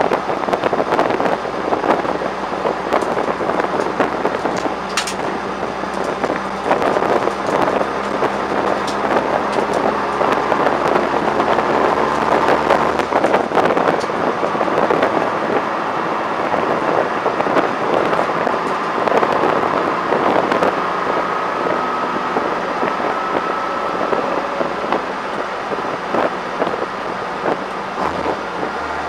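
Peugeot 106 GTI's 16-valve four-cylinder on Jenvey individual throttle bodies, heard from inside the cabin at track speed: loud induction and engine noise, swelling and easing through the lap, with many sharp crackles.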